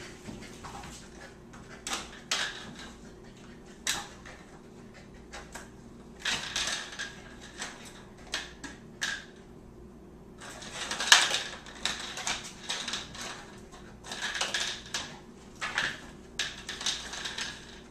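Plastic M&M candy tubes clattering and knocking on a tile floor as a Border Collie puppy noses and paws at them. The clicks and knocks come in scattered clusters, the loudest about eleven seconds in.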